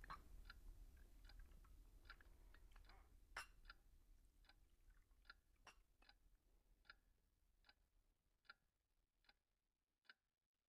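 Faint clock ticking steadily, a little faster than once a second, over a low hum that fades away; two sharper clicks stand out partway through.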